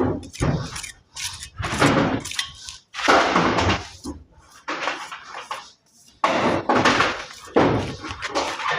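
Steel plastering trowel scraping over cement mortar in a run of repeated strokes, some short and some about a second long, with brief pauses between them, as it forms the sharp corner edge of a door jamb.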